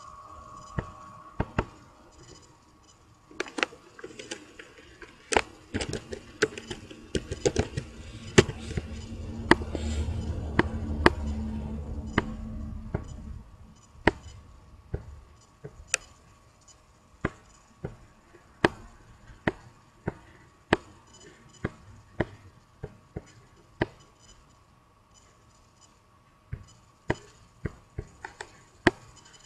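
A run of sharp clicks, roughly one a second. A low rumble swells and fades between about six and thirteen seconds in.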